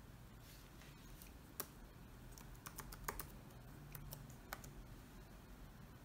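Faint, irregular key presses on a Dell G7 7588 laptop keyboard, typing a password to sign in to Windows.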